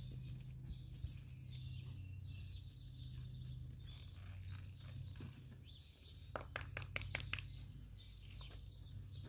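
Faint outdoor ambience: scattered bird chirps over a low steady hum, with a quick run of sharp clicks about six seconds in.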